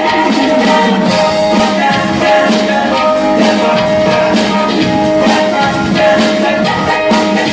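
Live band playing a song: keyboard chords and drum kit beat, with voices singing along.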